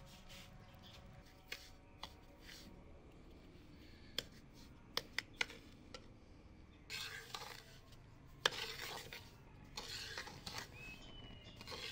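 Slotted metal spoon stirring semolina roasting in ghee in an aluminium pot: a few light clinks of the spoon against the pot, then from about seven seconds in, several scraping strokes across the pot's bottom.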